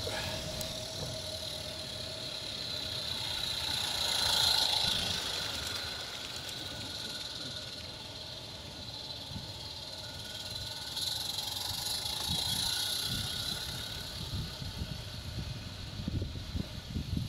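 A 16mm-scale live-steam garden-railway locomotive hissing as it runs. The hiss swells twice, about four seconds in and again about twelve seconds in, over a low, irregular rumble.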